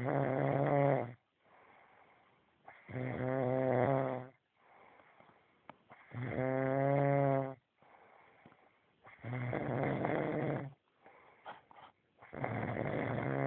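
A man snoring loudly in his sleep: five long snores, each about a second and a half, coming roughly every three seconds, with quieter breathing in between.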